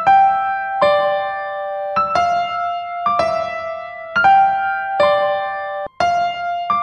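Instrumental music: a slow keyboard melody of single sustained notes, a new note struck about once a second. The sound cuts out suddenly for a split second about six seconds in.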